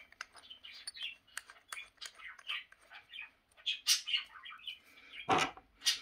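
Small birds chirping in the background, short irregular high chirps. Two sharp handling clicks near the end as the drill is picked up.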